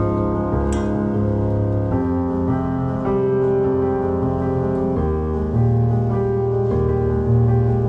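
Background music: a soft piano-like keyboard playing held chords that change every second or two.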